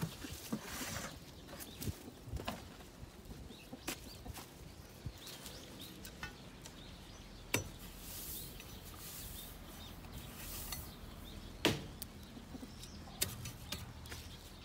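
Dry rice husks rustling and swishing as a hoe spreads and rakes them across a coop floor, with scattered sharp clicks and one louder knock about three-quarters of the way through.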